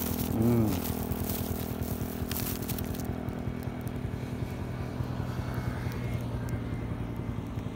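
A vehicle engine idling steadily close by, with a rapid even beat. A brief voice-like sound about half a second in, and a hiss over the first three seconds.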